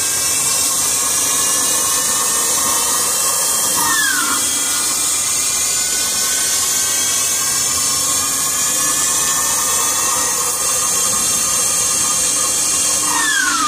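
Okuma LB-15 CNC lathe running: a steady machine whine and hiss, with a short drop in pitch about four seconds in and again near the end.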